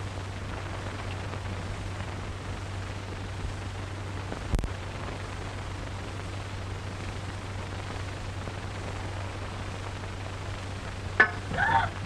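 Steady hiss and low hum of an old optical film soundtrack, with a single thump about four and a half seconds in. Near the end a sharp click, then a woman's brief startled cry.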